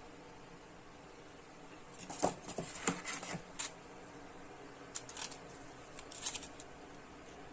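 Small packaging items being handled: clicks and rustles of a plastic tool and paper cards against a foam packing tray, in two short clusters about two and five seconds in.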